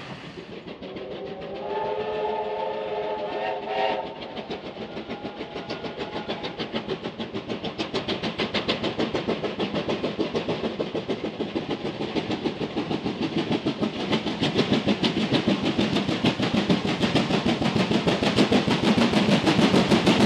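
A steam locomotive sounds its whistle for about two seconds, then works past with a fast, even run of exhaust beats that grows steadily louder.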